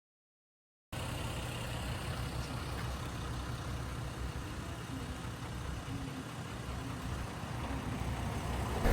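A vehicle running, a steady engine and road noise, starting abruptly about a second in after a moment of dead silence.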